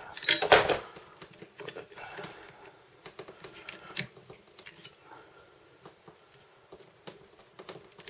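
Gerber Shard keychain pry tool scraping and clicking against a staple as it is pried out. There is a loud cluster of clicks about half a second in, a sharp click about four seconds in, and fainter scratching in between.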